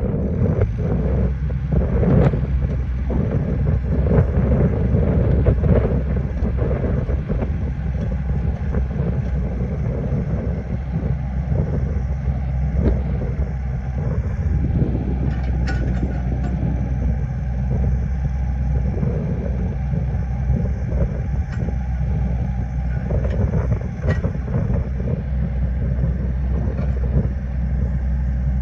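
Takeuchi TB210R mini excavator's diesel engine running steadily, with a few sharp knocks along the way.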